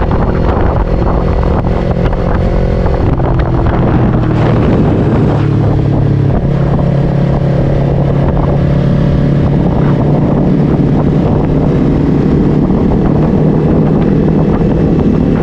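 Motorcycle engine running under way, with wind rushing over the microphone. The engine note shifts a few times in the first six seconds, then holds steady.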